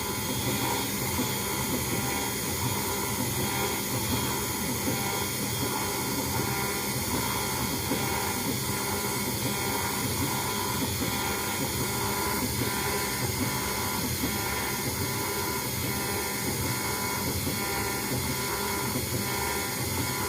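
CNC router spindle whining steadily at high speed, several fixed tones over a hiss, as a 0.1 mm conical engraving cutter machines a relief into a brass plate.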